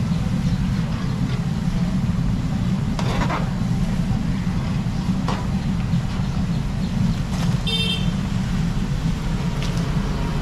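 Outdoor street noise: a steady low rumble, a few short clinks, and one brief high-pitched horn toot about eight seconds in.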